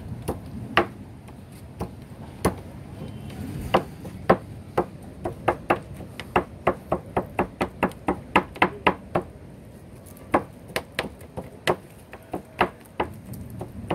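Kitchen knife knocking against a wooden cutting board as raw tuna is cut, in a run of sharp, irregular knocks. They come quickest through the middle, about three or four a second, and are fewer near the end.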